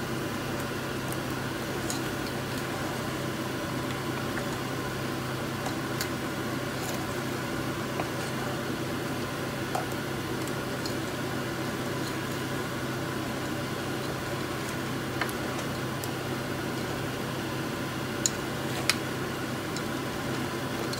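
A wooden spoon stirs crab curry in a metal pot, giving a few short sharp clicks as spoon and crab shells knock against the pot, over a steady low hum and hiss.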